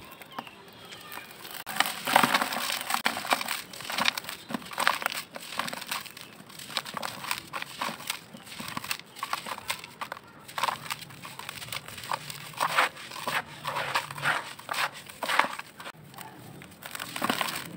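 A dry, gritty lump of packed sand crushed and crumbled by hand, crunching and crackling in repeated squeezes as grains fall into a plastic tub. There is a brief lull about three-quarters of a minute… near the end, then the crunching starts again.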